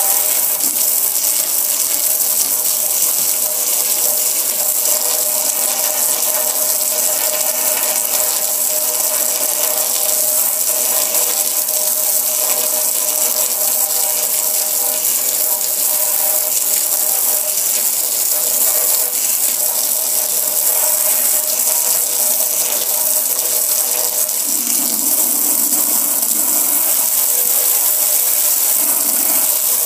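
A water jet spraying hard onto a metal gas grill, hissing and splashing steadily as it runs off onto concrete, with a steady mechanical hum of a few tones underneath. A lower sound joins briefly near the end.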